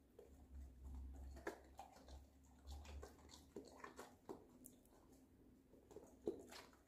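A Labrador retriever chewing raw vegetables taken from the hand: faint, irregular crunches and clicks.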